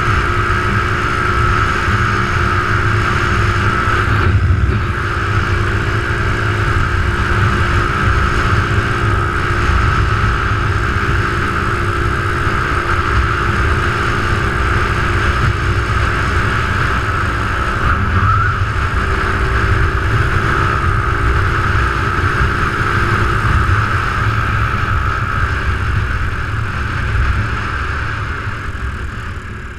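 Small motorcycle's engine running at a steady cruising speed, a constant hum with a higher whine, under heavy wind rumble on a helmet-mounted microphone. It eases off near the end as the bike slows.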